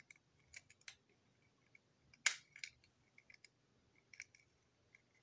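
Light clicks and taps of small plastic model wagon parts and a screwdriver being handled on a tabletop, with the sharpest click a little over two seconds in.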